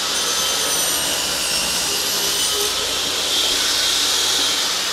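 Craftsman table saw running steadily, its blade cutting a slot across a glued-up scrap hardwood board as the board is fed through on a sled. Steady whine, a little louder in the last second or so.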